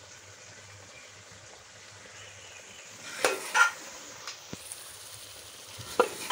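A metal spoon stirring the potato curry in a metal pot, scraping and clinking against it a few times from about three seconds in and once more near the end, over a faint steady sizzle of the simmering masala.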